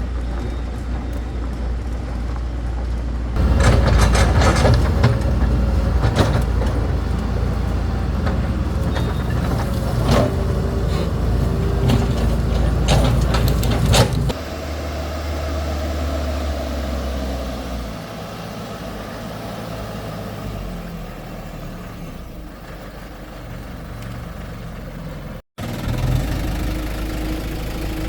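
Excavator engine running with a steady low hum. From about three seconds in it runs louder for about ten seconds with repeated metallic clanks and whining tones, then settles back to a quieter, steady idle.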